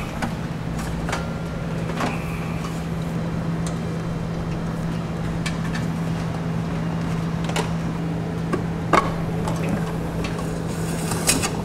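Scattered light clicks and knocks of wires and plastic being handled as a pull wire and wiring harness are fed up under a car's rear bumper, over a steady low hum; the sharpest knock comes about nine seconds in.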